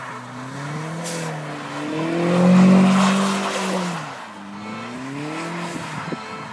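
Audi's engine revving up and down as the car spins circles on snow, its pitch swinging repeatedly with tyre noise. It is loudest as the car sweeps past about three seconds in.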